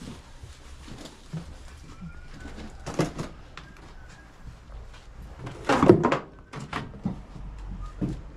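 Knocks and clatter of goods and boxes being handled at tables, with a sharp knock about three seconds in and a louder, longer clatter about six seconds in.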